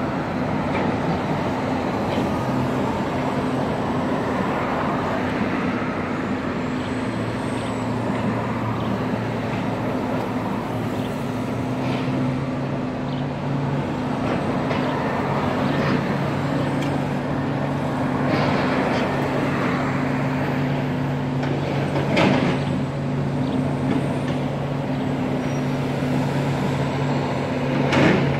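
Heavy diesel engines running steadily, an excavator working a demolition site and trucks in the road traffic, with a couple of sharp bangs: one about three quarters of the way through and one at the end.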